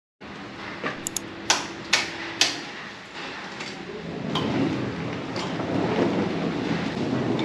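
A few sharp knocks and clunks, then the steady rumble of a vehicle under way, growing louder from about halfway through.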